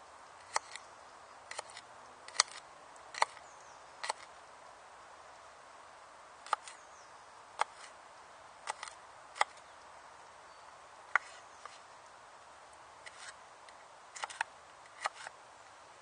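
Richard Kapeller survival knife chopping garlic on a wooden board: sharp, uneven knocks of the blade striking the wood, some in quick pairs, with pauses between runs of cuts.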